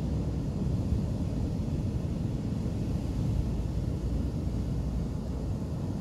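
Steady low rumble of sea wind on the microphone mixed with surf breaking on the beach, even throughout with no single wave standing out.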